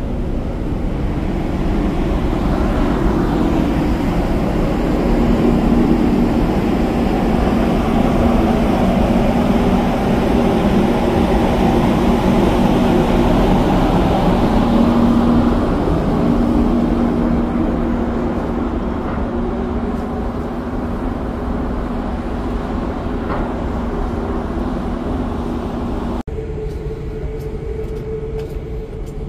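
Steady hum of a ferry's machinery on its open top deck, with wind rumbling on the microphone; after a cut near the end the hum sits higher.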